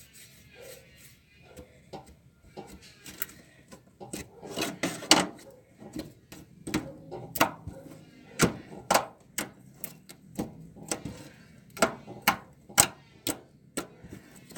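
Homemade slime being stretched and pressed by hand, giving off a quick irregular run of sharp clicks and pops as air pockets burst, starting about four seconds in after a few seconds of soft rubbing. The clicking shows the slime is firm enough to click while still stretching well.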